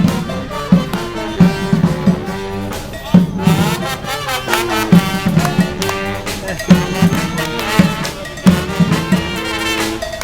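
Street brass band playing live: trumpets, trombones and saxophones over a steady drum beat.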